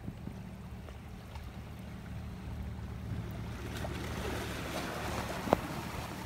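Seashore ambience: a steady low rumble with waves washing over shore rocks, the wash swelling in the second half, and a single sharp click about five and a half seconds in.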